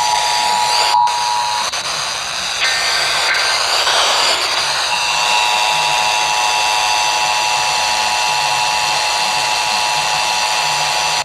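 Emergency Alert System attention signal, the two steady tones of 853 and 960 Hz sounded together, heard over FM radio for a National Periodic Test. The tones break off after about a second and a half into a few seconds of hiss, then return and hold steady.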